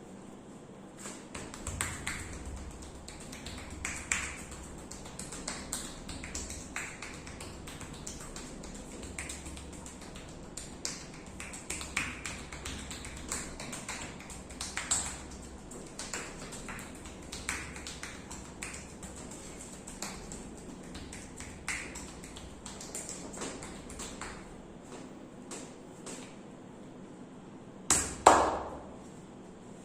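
Hand massage sounds: light, irregular taps and rubbing of hands on the body, several a second at times. Near the end comes one much louder sharp hit.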